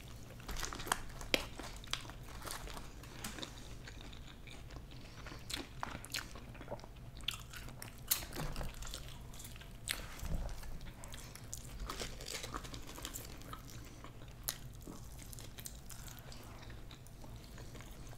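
Close-miked chewing and biting into fried chicken wings: irregular crunches and mouth sounds from two people eating, over a steady low hum.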